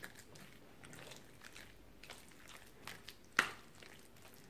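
A spoon mixing wet minced chicken in a glass bowl: faint, soft squelching with small scattered clicks, and one sharper knock about three and a half seconds in.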